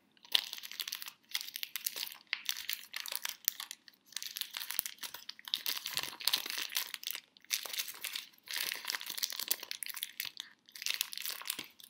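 Christmas wrapping paper crinkling and tearing as a small present is unwrapped by hand, in a series of bursts with short pauses between them.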